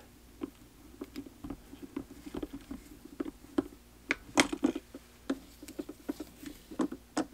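Fingers handling fly-tying thread and material around a hook held in a fly-tying vise: small, irregular clicks and scratchy rustles, with a louder cluster about four and a half seconds in.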